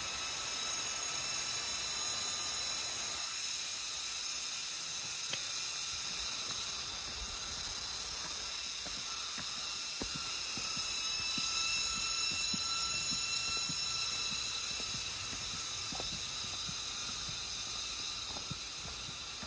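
Steady high-pitched insect chorus droning in the forest, swelling a little midway, with faint soft ticks underneath.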